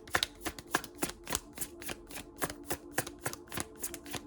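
Tarot cards being shuffled by hand: a quick, even run of card slaps and flicks, about five a second.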